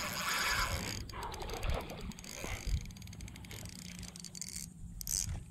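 Spinning reel cranked under load as a hooked red drum is reeled in: its gears and handle give irregular ticking and clicking.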